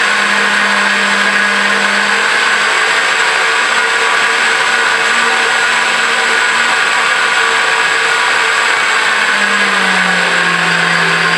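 Cleanblend 3-horsepower blender motor running steadily, blending a smoothie.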